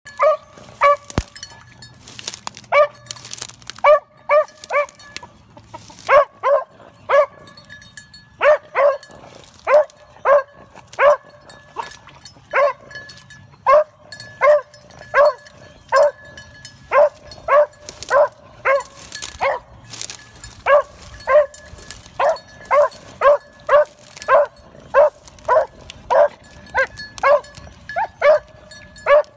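Beagle barking over and over in short barks, about one to two a second with a brief pause about eight seconds in: a hound giving tongue as it trails a rabbit's scent through brush.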